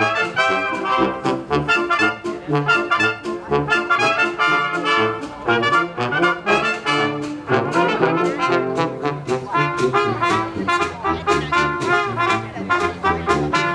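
Symphony orchestra playing live, loud, with the brass prominent over sharp rhythmic accents; the music thickens into fuller held chords about halfway through.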